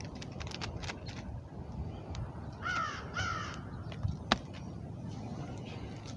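A bird gives two short, harsh calls about half a second apart, and a sharp single click or knock follows about a second later.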